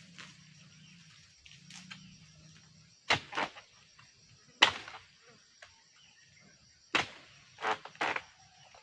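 Sharp cracking strikes at uneven intervals, about six in all, like chopping or breaking woody plant material, over a steady high insect buzz.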